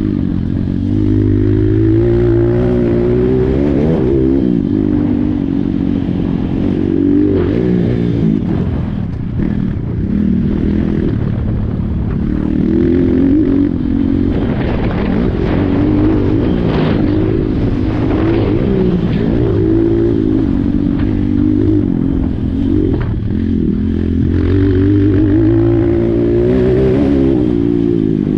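Apollo RXF 150 pit bike's single-cylinder four-stroke engine running under way. The revs rise and fall again and again as the throttle opens and closes through the ride.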